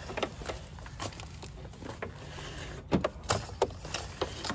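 Irregular clicks, taps and rubbing as a twin-core power cable is pushed and fed under loosened plastic door-sill trim, with a couple of louder knocks about three seconds in.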